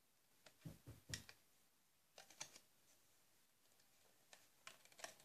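Near silence with faint small clicks and taps of a loom hook and rubber bands being worked on a small plastic Rainbow Loom, a few clicks in a row with pauses between.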